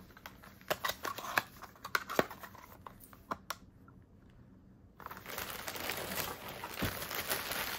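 Handling sounds: sharp clicks and taps from a small cardboard perfume box being handled for the first few seconds, then, about five seconds in, a steady crinkling rustle of packaging being moved about.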